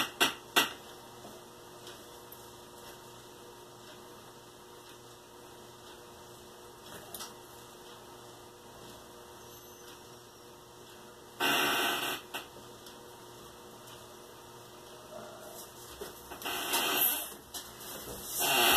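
Paper sliding and rustling on a desk in short bursts: one about two-thirds of the way through and two near the end. Under it runs a faint steady electrical hum.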